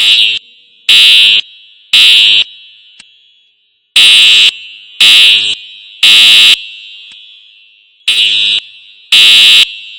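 Building fire alarm sounding the temporal-three evacuation signal: loud, high-pitched beeps in sets of three about a second apart, with a pause between sets, each beep trailing off in echo. It is the standard signal to evacuate the building.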